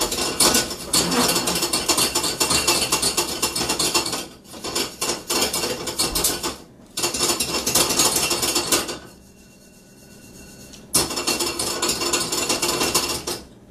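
Pepitas (pumpkin seeds) popping and crackling as they toast in a pan, a dense crackle that sounds like a campfire. It breaks off briefly a few times and goes quieter for a couple of seconds about two-thirds of the way through before picking up again.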